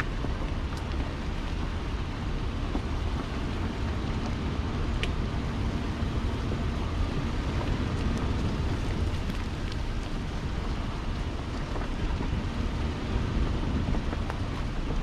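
Off-road vehicle driving slowly over a rough dirt trail: a steady low rumble of engine and tyres, with wind buffeting the microphone and a few light clicks.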